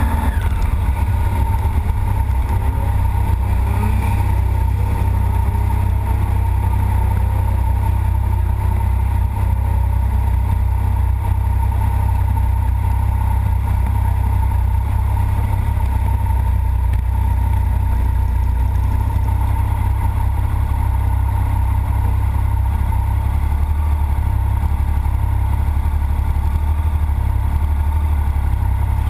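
Several sport motorcycles idling together with a steady low rumble, and other bikes briefly revving up and down in the first several seconds.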